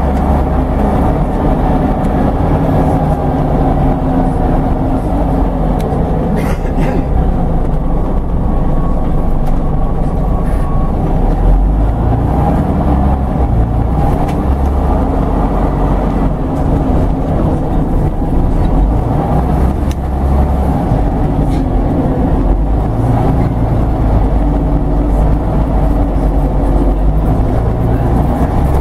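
Scania OmniDekka double-decker bus heard from inside the lower-deck cabin on the move: a steady, loud low engine and road rumble. A single short knock comes about six and a half seconds in.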